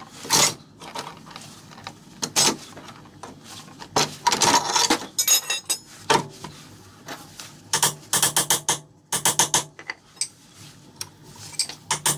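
Irregular metal clanks, clicks and rattles as a car's front steering knuckle is worked down onto the lower control arm's ball joint stud, with short runs of quick clicking about a third of the way in and again past the middle.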